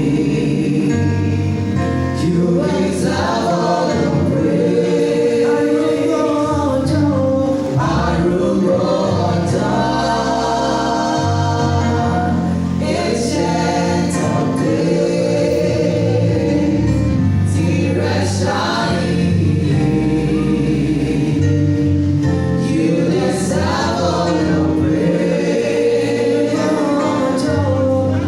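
A small choir singing a gospel song in harmony over held low notes that change every couple of seconds.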